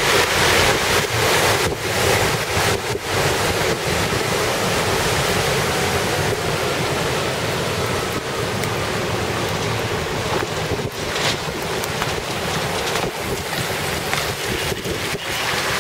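Wind buffeting the microphone, a steady rushing noise. In the first few seconds it is louder, mixed with the swish of a tractor-trailer's tyres ploughing through floodwater.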